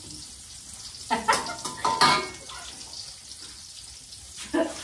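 Kitchen handling sounds: a few sharp clatters and knocks of dishes and utensils, about a second in, two seconds in and again near the end, over a steady background hiss.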